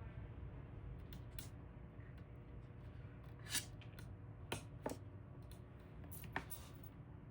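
A few sharp clicks and taps from small hardware being handled, scattered over a low steady hum; the loudest comes about halfway through.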